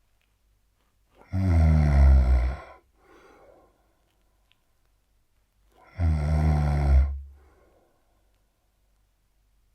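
A man snoring heavily: two loud snores about four and a half seconds apart, each followed by a faint, softer breath.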